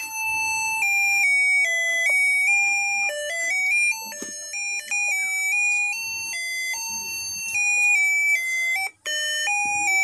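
Small loudspeaker driven by a UM66 melody-IC doorbell circuit playing its built-in tune: a simple electronic melody of single beeping notes stepping up and down several times a second. The tune cuts out for a moment about nine seconds in, then carries on.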